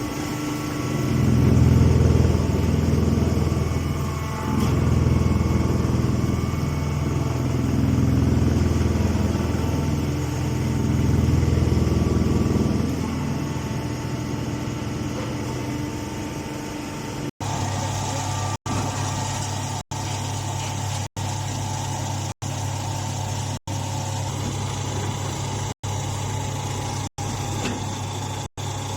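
Baling machine running with a low, engine-like hum that swells and eases about four times over the first dozen seconds, then settles to a steadier, quieter hum. From just past halfway the sound drops out briefly and regularly, about every second and a quarter.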